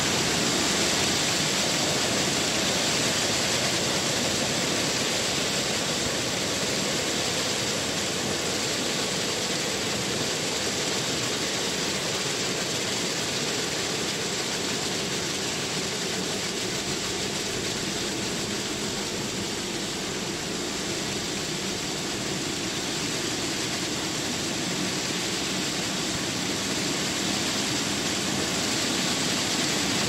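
Waterfall: a steady, even rushing of falling water with no break, dipping slightly in loudness around the middle.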